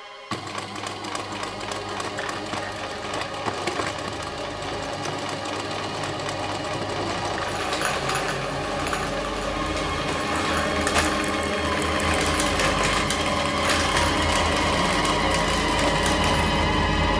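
Electric domestic sewing machine running at speed: a fast, steady clatter of the needle mechanism over a motor hum, starting suddenly and growing steadily louder.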